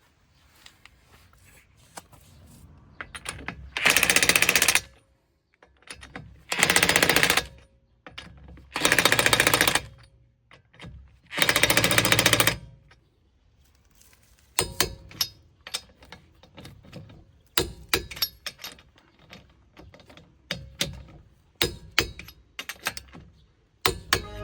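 Parkside PASSK 20-Li C4 20 V cordless impact wrench hammering in four bursts of about a second each, followed by a series of sharp clicks and knocks.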